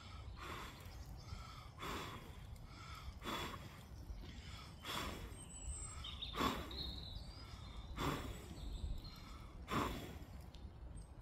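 A person blowing into a small hobo stove to revive a fire that keeps going out: a series of short breathy blows, about one every second and a half.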